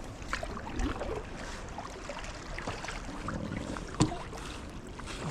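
Kayak paddle strokes splashing and dripping beside an inflatable kayak, with a single sharp knock about four seconds in.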